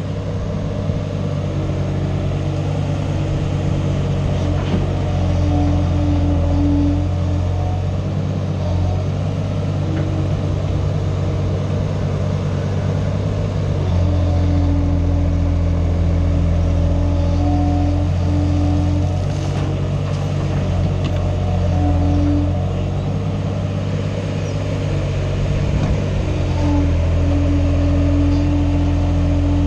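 Kubota U17-3 mini excavator's three-cylinder diesel running steadily under work, with a higher tone coming in and out several times as the boom, arm and bucket are worked to dig and load soil.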